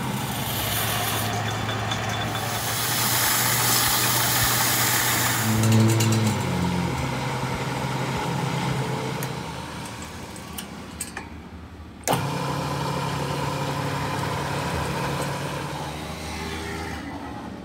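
Lathe motor running with a steady low hum, with a hiss over it for a couple of seconds. About six seconds in the hum drops in pitch and dies away, then a steady hum starts again suddenly about twelve seconds in.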